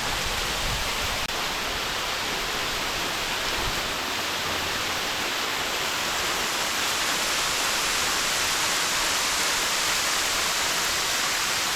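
An 80-foot waterfall heard up close: a steady rushing of falling water.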